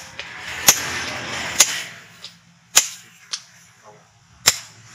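Hand hammer striking red-hot leaf-spring steel on a steel anvil while forging a knife blank: four sharp metallic blows at an uneven pace with a couple of lighter taps between, over a hiss in the first two seconds.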